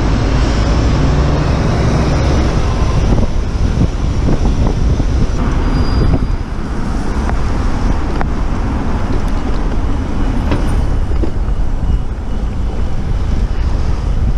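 Steady city road traffic noise heard from a moving bicycle: a continuous low rumble of vehicles, with no single event standing out.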